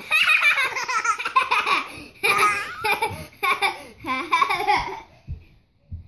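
A young child laughing hard in repeated breathy bursts for about five seconds. Near the end come a couple of dull thumps.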